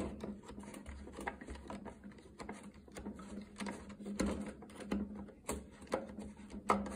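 Side cutters gripping the steel swirl-valve shaft and twisting it back and forth in a plastic EcoDiesel intake manifold, giving faint, irregular clicks and ticks as the shaft is worked loose. A low steady hum runs underneath.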